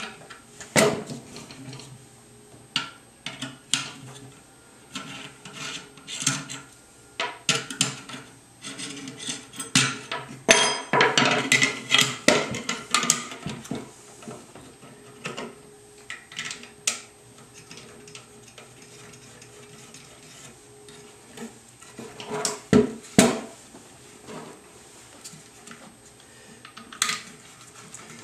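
Metal gun parts and tools being handled as the front Picatinny rail is taken off a bullpup shotgun stock: irregular sharp clicks, knocks and clatter, busiest near the middle, quieter for a stretch after that, then a couple of strong knocks later on.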